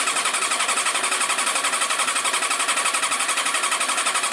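Yamaha Diversion motorcycle engine being turned over on its electric starter, with an even pulsing of about eight beats a second and never firing. The ignition coils are disconnected, so it cannot start, and the cranking is drawing fresh fuel into the carburettors.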